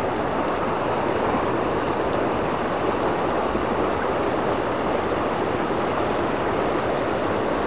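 Mountain torrent rushing over rocks and through shallow riffles: a steady, even rush of water.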